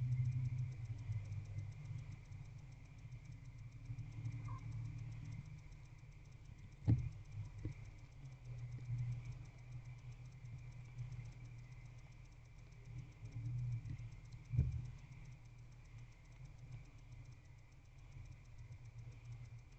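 Barn owl moving and feeding in a wooden nest box: a few sharp knocks, about seven seconds in and again near fifteen seconds, over a low steady rumble and a faint high hum.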